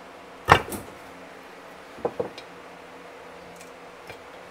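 Metal tool knocking against a stubborn oil seal and its housing as it is pried out. There is one loud clank with a brief ring about half a second in, a quick pair of knocks about two seconds in, and a faint tap near the end.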